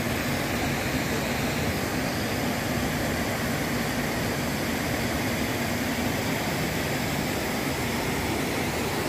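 Creek water rushing over shallow rapids: a steady, even rush with no breaks.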